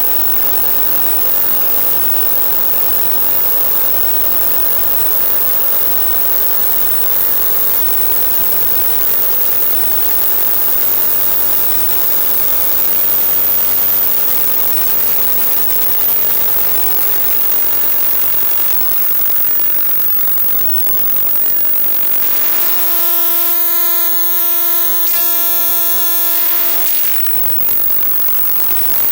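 Electronic music from hardware synthesizers: a dense, noisy drone with many held tones, which can pass for engines and horns. About 22 seconds in, a strong held note enters and cuts off suddenly about five seconds later.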